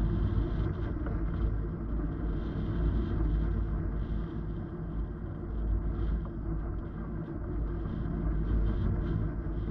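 Airflow buffeting an action camera's microphone during paraglider flight: a steady low rumble that keeps swelling and easing.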